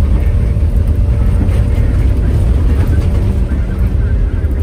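Engine and tyre noise inside the cabin of a Toyota four-wheel-drive on a rough dirt track: a loud, steady low rumble.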